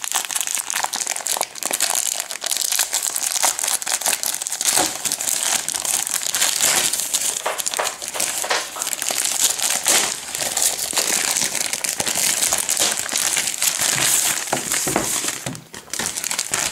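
Plastic packaging crinkling and crackling without a break as a trading-card starter pack is unwrapped by hand.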